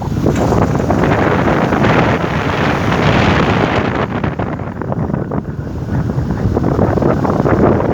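Toyota 2NZ-FE inline-four engine running with a fast, dense rattling knock from the VVT-i cam-timing coupling, the sign of a worn VVT-i sprocket.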